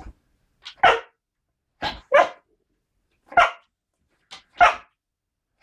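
A Styrian coarse-haired hound (Steirische Rauhhaarbracke) barking loudly in short single barks about once a second, some coming as quick doubles.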